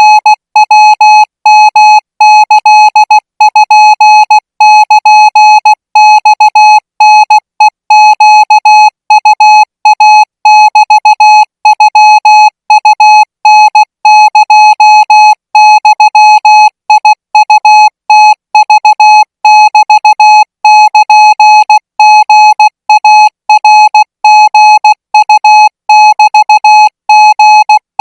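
Thai Morse code sent as a single steady beep, keyed on and off in rapid dots and dashes at 20 words per minute.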